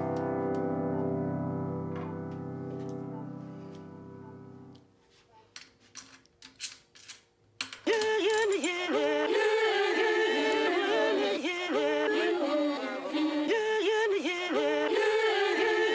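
Background music. A sustained keyboard chord fades out over the first few seconds, there is a quiet gap with a few faint clicks, and then a new track starts about eight seconds in with a wavering sung melody.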